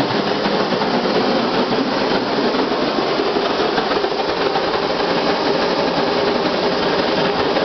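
Homemade siphon-nozzle waste-vegetable-oil burners firing a brick kiln: a loud, steady rushing noise of burning atomised oil.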